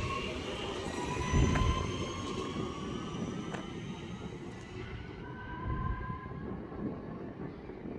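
Class 323 electric multiple unit pulling away and receding along the line. Its motor whine of several tones slowly falls in pitch and fades out about five seconds in, over a low rumble from the train that is loudest about a second and a half in.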